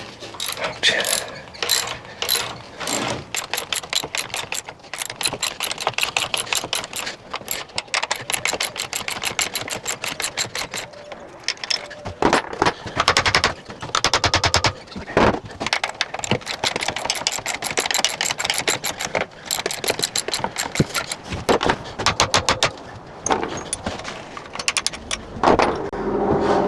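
Ratchet wrench clicking in quick, rapid runs while bolts are loosened, broken by a few louder knocks around the middle.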